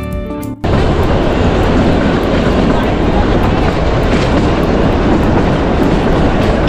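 A moving narrow-gauge train gives a loud, steady rumble with rushing air. Guitar music cuts off abruptly about half a second in, just before the rumble begins.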